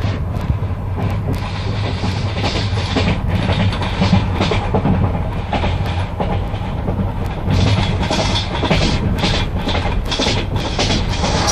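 Passenger train carriage running along the line: a steady low rumble with the wheels clicking irregularly over the rail joints.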